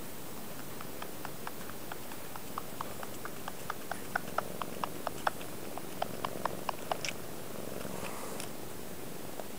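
Kitten suckling at its mother cat's teat: a run of small wet clicks and smacks, about four a second, starting faint, growing louder midway and stopping about seven seconds in.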